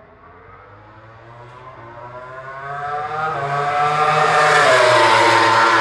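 A racing motorcycle's engine at high revs, climbing in pitch and growing louder as it approaches, then sweeping past with a drop in pitch about four and a half seconds in.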